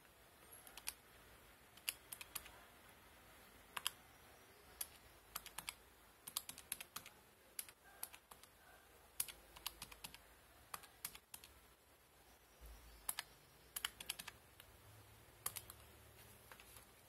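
Keys of a Casio fx-991MS scientific calculator being pressed: faint, irregular clicks, some in quick runs of several, as a calculation is keyed in.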